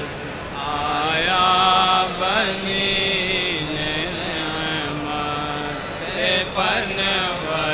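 A solo voice chanting a melodic religious recitation, holding long notes ornamented with wavering turns and sliding pitch sweeps.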